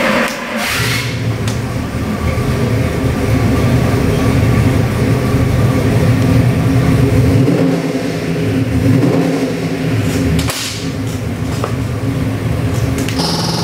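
Chrysler 440 V8 with three two-barrel Holley carburetors (six-pack) running steadily on the engine dyno, heard through the dyno cell's window. A sharp click sounds about ten and a half seconds in.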